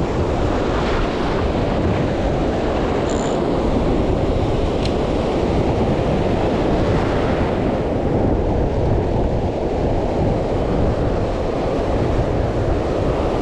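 Ocean surf breaking and washing up the beach, swelling twice as waves run in, with wind rumbling on the microphone.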